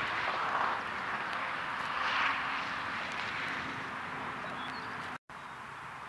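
Steady rushing background noise that swells twice in the first half and cuts out for an instant near the end.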